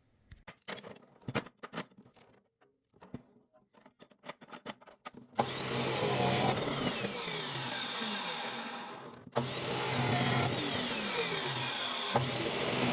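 Scattered light clicks and knocks of metal parts being handled. About five seconds in, an electric power tool starts cutting metal and runs steadily. It dies away and stops briefly about nine seconds in, then starts again and keeps cutting.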